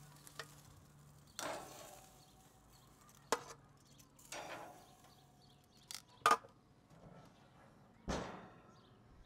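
Handling at the gas grill with the cooking utensils: a string of about seven separate sharp clicks and clanks, some with a short ring, the loudest about six seconds in.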